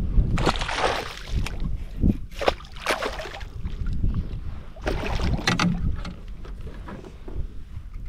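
Water splashing in several irregular bursts around a kayak, over a low rumble of wind buffeting the microphone.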